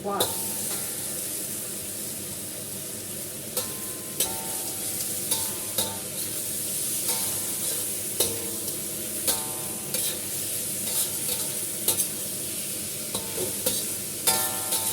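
Bitter melon sizzling in hot oil as it goes into the pan with the pork ribs, the sizzle jumping up just as it is added. A metal spatula scrapes and knocks against the pan every second or so while stir-frying, some knocks leaving a short ring.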